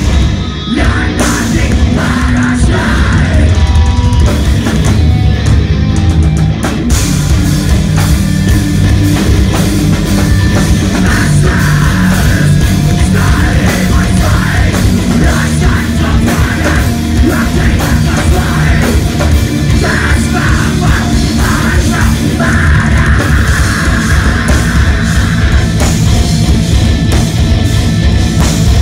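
Heavy metal band playing live at full volume: distorted electric guitars and bass over fast, dense drumming, with a vocalist screaming in stretches.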